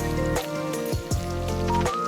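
Background music: a melody of stepping notes over low held tones, with a steady beat about every three quarters of a second.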